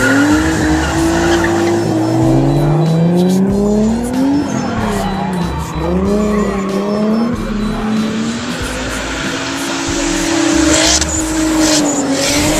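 Drift cars sliding past, engines revving with the pitch climbing, dropping about four seconds in and climbing again, over loud tyre squeal that swells near the end.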